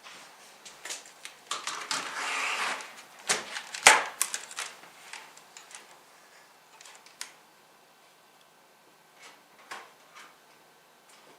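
Irregular clicks and knocks from objects being handled, with a rustle about two seconds in and a sharp knock about four seconds in; the rest is fainter scattered clicking.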